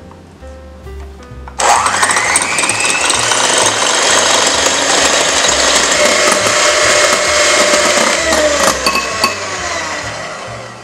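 Electric hand mixer switched on about a second and a half in, its motor whine rising as it spins up to high speed, then running steadily as the beaters whip egg whites in a glass bowl toward soft peaks. It winds down and fades near the end, with soft background music underneath.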